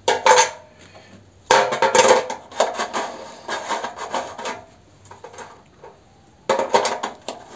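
Hands working the plastic fuel cap on top of a small petrol engine's tank: clattering and scraping in three bursts, the longest from about a second and a half in, another near the end.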